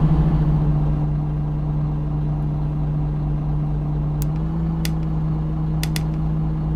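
Iveco Crealis bus running with a steady low hum. Its pitch steps up slightly about four and a half seconds in, and a few sharp clicks sound through the second half.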